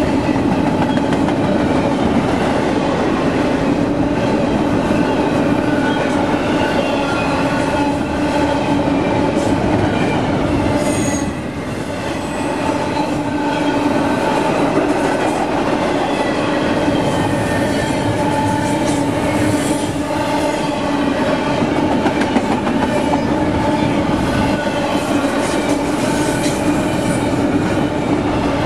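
Double-stack intermodal freight train passing close at speed: steel wheels rolling loudly over the rails, with a steady ringing squeal from the wheels. The level dips briefly about 11 seconds in.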